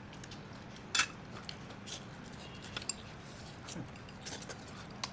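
Scattered small clicks and clinks of eating at a table, the sharpest about a second in, over a faint steady hum.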